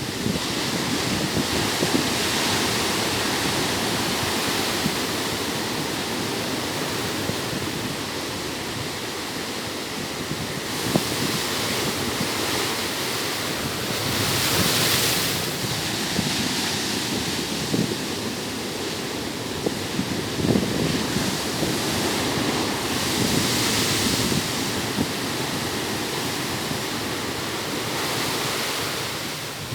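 Ocean waves breaking on a beach: a steady wash of surf that swells louder about three times as bigger waves come in and break.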